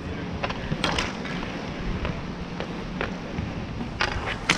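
Inline skate wheels rolling on an asphalt rink, with scattered sharp clacks of hockey sticks, the loudest near the end.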